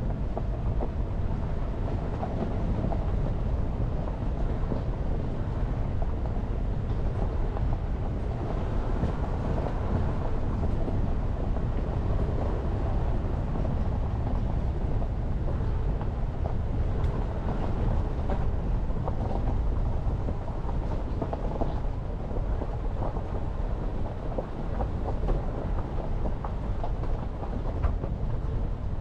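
Jeep Renegade driving along a mountain forest road: steady low rumble of tyres and engine with scattered faint ticks.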